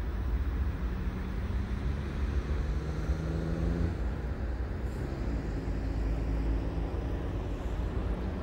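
Steady low rumble of outdoor background noise, with faint steady hum-like tones coming in about a second in and again past the middle.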